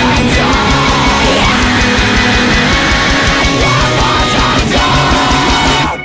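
Loud, fast heavy rock from a band: distorted electric guitars over rapid drumming, breaking off abruptly at the very end.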